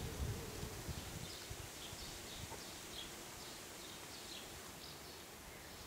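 Faint, short, high chirps of small birds, repeated irregularly, over a low rumble that dies away in the first second or so.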